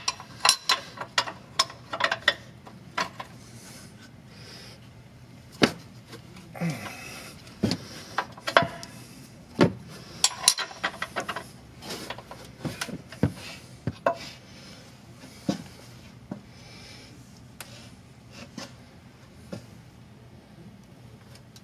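A wrench working the nut on a truck's upper control arm camber adjustment cam bolt: irregular metallic clicks and knocks with short scraping and rubbing sounds in between, as the nut is loosened and the cam turned.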